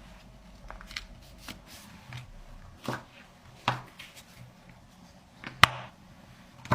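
Paper being handled and creased by hand: a string of short rustles and sharp crackles, the loudest about five and a half seconds in.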